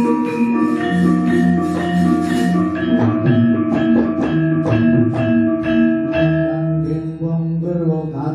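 Javanese gamelan ensemble playing: bronze metallophones strike a steady run of notes, about three a second, over low held tones.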